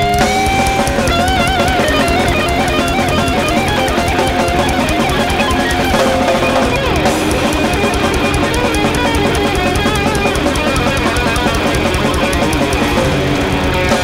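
Thrash metal band playing live: distorted electric guitars and bass over fast, dense drumming, with a high lead guitar line that bends and wavers in pitch.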